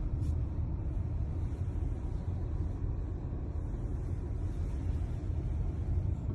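Steady low rumble of a car in motion.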